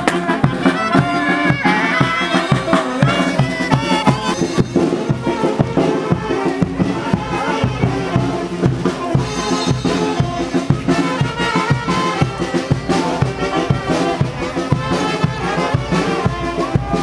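Brass band music, with trumpets and trombones playing a melody over a steady drum beat.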